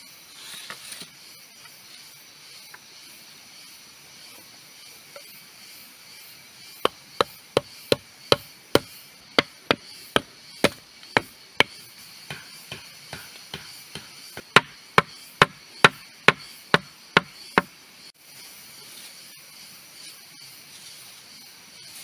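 Repeated chopping strikes on wood, about two to three a second, in two loud runs with a stretch of lighter strikes between them, over a steady background hiss.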